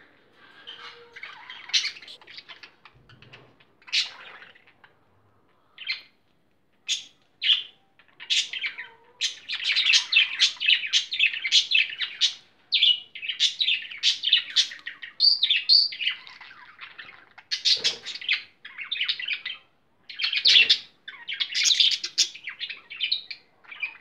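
A flock of budgerigars chirping and chattering: scattered short high calls at first, then near-continuous busy chatter from about a third of the way in.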